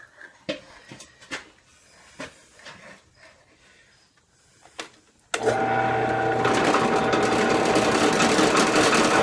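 Electric arc welding: light metal clinks and taps, then about five seconds in the arc strikes and runs with a steady, loud crackle and buzz.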